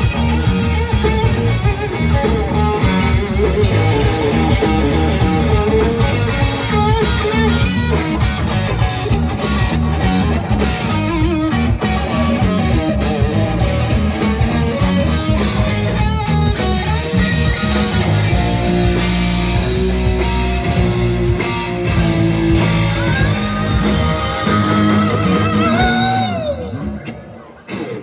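Live rock band playing without vocals: electric guitar to the fore over bass guitar and drum kit. Near the end a guitar note slides down and the band briefly drops away.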